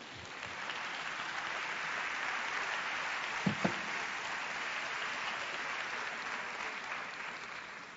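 Audience applauding in a large hall: a steady wash of clapping that swells in over the first second, holds, and tapers off near the end.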